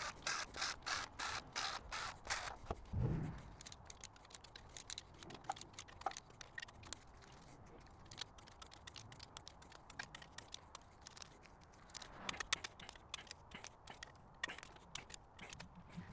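A ratchet clicking in runs as the main bearing cap bolts of a 1.9 L VW ALH diesel block are run down ahead of torquing. A quick series of sharp clicks comes first, then a low knock about three seconds in.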